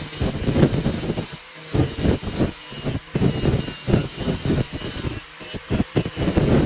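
Irregular rubbing and scraping strokes of hand tool work, several a second, with short pauses between runs.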